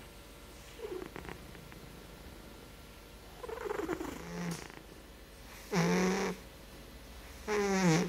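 British Shorthair Blue cat snoring in its sleep: four pitched snores, each under a second long, the last two much louder, the final one falling in pitch.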